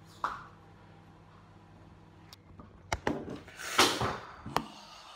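Kitchen handling noises close to the microphone: a few sharp knocks and clicks and a short loud rustle a little before the end, as things are moved about on the counter.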